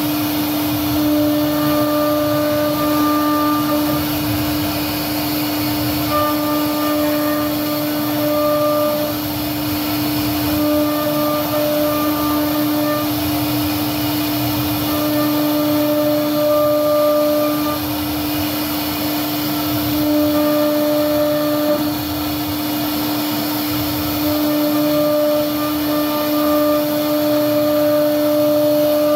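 CNC router spindle running steadily, its bit carving a floral relief into a wooden door panel: a constant hum under a noise haze, with a higher tone that comes and goes every few seconds.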